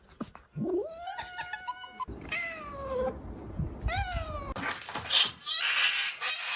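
A cat meowing three times: a long call that rises and then holds, a falling one, and a short rising-and-falling one, followed by a stretch of noisy sound without pitch near the end.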